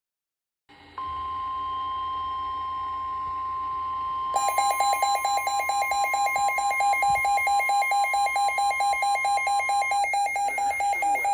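NOAA Weather Radio 1050 Hz warning alarm tone, a steady single tone that starts about a second in and stops near the end. About four seconds in, a rapid electronic beeping joins it, about five beeps a second, and keeps going after the tone stops: the signal that a weather warning is being broadcast.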